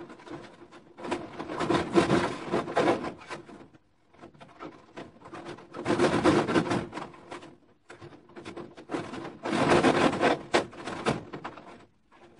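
Chicken wire mesh being pulled and shifted across the top of a wooden planter box, scraping and rattling against the wood in three bursts of a second or two each.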